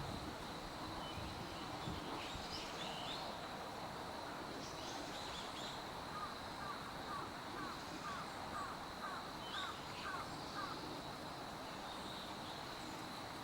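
Birds calling over steady outdoor background noise. Faint high chirps come and go, and midway a bird gives a run of about nine short repeated calls, roughly two a second. A steady high-pitched tone sits under it all.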